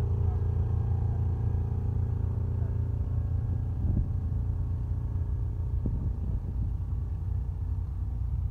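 Old tractor engine running, heard as a steady low rumble, with a faint engine tone that fades about three seconds in.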